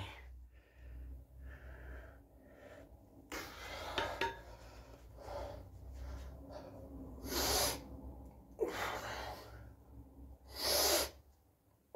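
A man breathing hard with the effort of dumbbell shoulder flyes. There are about four forceful, hissing breaths, the loudest in the second half.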